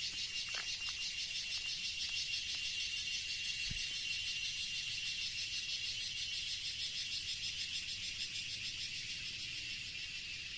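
Chorus of forest insects: a steady, high-pitched, rapidly pulsing trill that fades slightly near the end.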